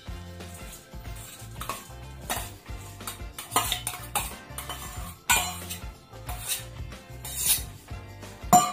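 Metal spoon scraping and clinking against a stainless steel bowl and kadai as chopped vegetables are tipped into the pan, in irregular strokes, the loudest near the end. Background music plays underneath.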